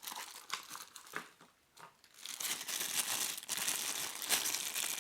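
Packaging crinkling and rustling as a power adapter is lifted out of its small box: a few short rustles, then about three seconds of steady crinkling.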